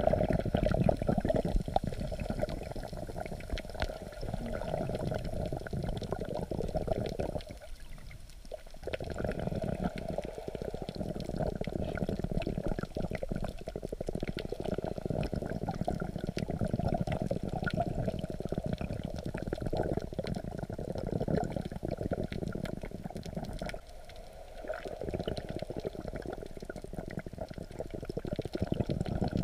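Sea water sloshing and bubbling around a camera held just under the surface and rocked by waves, a dull continuous wash with many small clicks. It drops away briefly twice.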